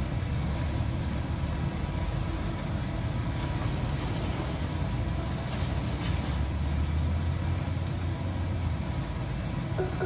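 Concrete mixer truck and belt conveyor running steadily while the conveyor carries steel fibre up into the truck's drum: an even low mechanical rumble with a thin, steady high whine over it.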